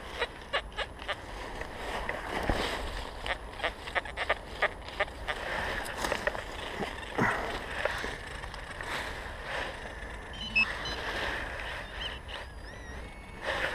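Dry fallen leaves rustling and crunching underfoot and under the knees, then a hand digger and gloved hands scraping through leaf litter and soil. Many short crackles in the first half give way to steadier scraping, with a few faint high chirps near the end.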